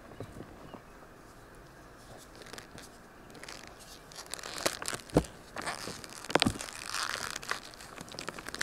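Dyed gym chalk chunks coated in cornstarch being squeezed and crumbled by hand: soft crunching and crackling that builds from about three seconds in, with a few sharp snaps as pieces break.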